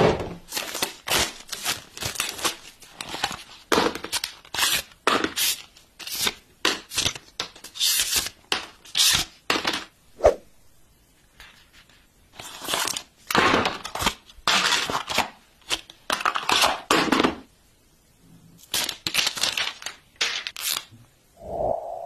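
Phone unboxing: cardboard and plastic packaging being torn, slid and handled in a quick run of scrapes, crinkles and taps, with two short pauses, about ten and eighteen seconds in.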